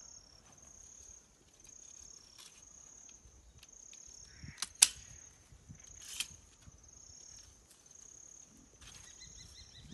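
A tissue-sampling (DNA) gun snaps shut with one sharp click about five seconds in as it punches a sample from a feral pig's ear, with a few fainter clicks around it. Behind it insects chirp in a steady high-pitched pulse, about one a second.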